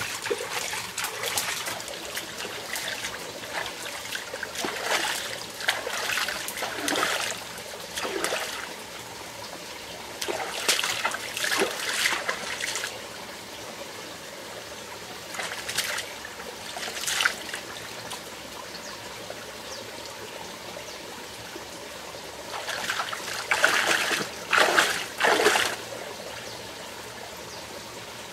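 Splashing as hands scoop and pour water in a shallow rocky stream, in several irregular bursts with pauses between them, over the stream's steady trickle.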